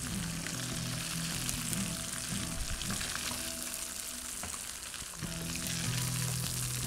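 Battered fish deep-frying in hot oil in a wok, giving a steady sizzle. Now and then a spatula clicks against the wok as the fried pieces are lifted out.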